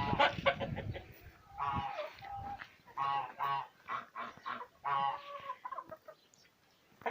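Domestic geese honking, a run of short calls, often two in quick succession.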